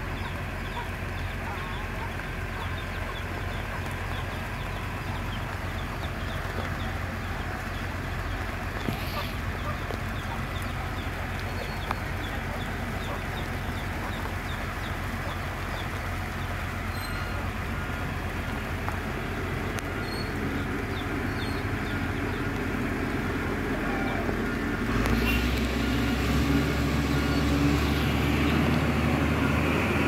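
Diesel engine of a yellow earthmoving machine running steadily, then working harder and louder about 25 seconds in. Chickens cluck now and then.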